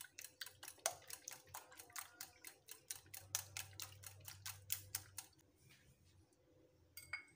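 Wire whisk beating eggs in a glass bowl: rapid, even ticking of the wires against the glass, about six strokes a second, stopping about five seconds in. A single ringing clink near the end.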